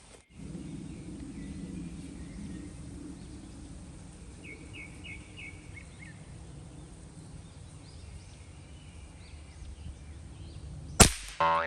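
Low outdoor rumble with a short run of bird chirps partway through, then near the end a single sharp .22 LR rifle shot from a Ruger 10/22, followed by a brief wavering tone.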